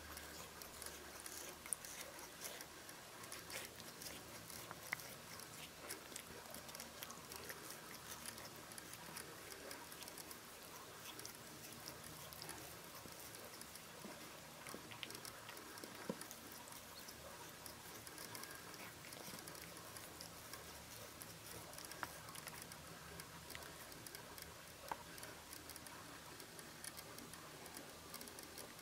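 Kitten grooming itself, faintly licking its paw and fur, with many small irregular clicks and ticks.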